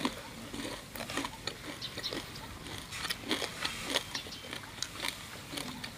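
People chewing crunchy fried pork with their mouths open to the microphone: a run of scattered crunches and wet mouth clicks.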